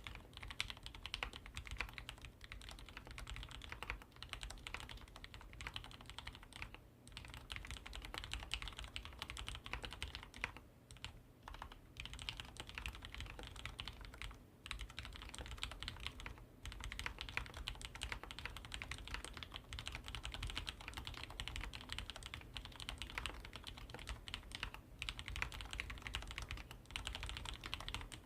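Steady fast typing on a Deck Francium Lite mechanical keyboard with Cherry MX Black linear switches. The sliders and stabilizers are lubed and the case is foam-dampened, so the keys give a crisp, clean clack against the plate with little case ping, broken by a few short pauses.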